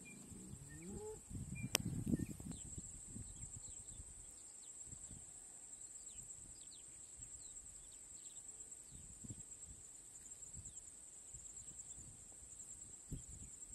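A distant bull's low moo trails off in the first second or so. After that come low gusts of wind on the microphone, a steady high insect-like drone, and a few faint bird chirps.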